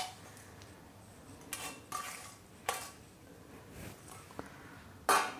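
Stainless-steel colander knocking against a steel mixing bowl as fresh fenugreek leaves are tipped out: a few light metal clinks, then a louder ringing clank near the end.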